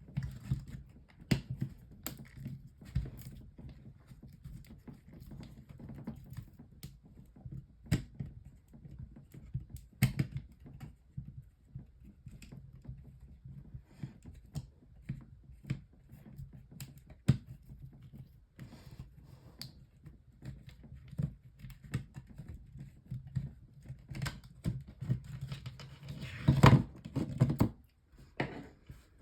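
Irregular clicks, knocks and rattles of a small plastic fan heater being taken apart by hand, over a faint low hum, with a louder clatter near the end.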